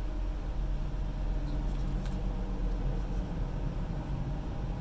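Steady low hum of room noise, with a few faint taps as the cardboard sample box is handled.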